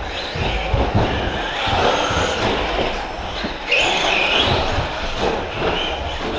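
Electric radio-controlled short-course trucks running on an indoor carpet track: motors whining and tyres rumbling, with repeated knocks from the trucks hitting bumps and landing jumps. A louder stretch of motor whine comes about four seconds in, and the sound echoes in a large hall.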